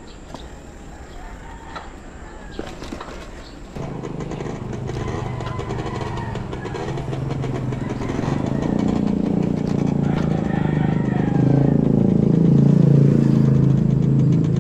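Motor vehicle engine running close by, with a sudden onset about four seconds in, then growing steadily louder over the next several seconds, its pitch shifting up and down.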